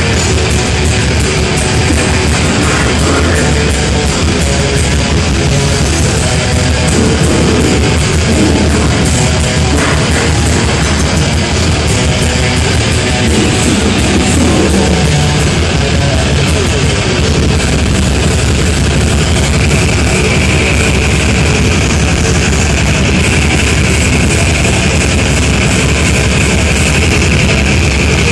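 Heavy metal band playing live at full volume: distorted electric guitars over drums, dense and unbroken throughout, with a higher guitar line standing out in the second half.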